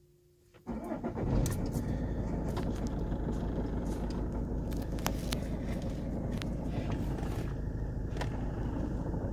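Opel Zafira 1.9 CDTI four-cylinder turbodiesel starting under a second in, then running at a steady idle with scattered sharp ticks. The engine is making a noise that its owner cannot locate.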